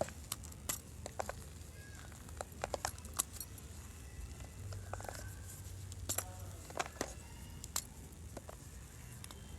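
Gym chalk being crushed: irregular dry crunches and crackles, with a few sharper snaps between quieter crumbling.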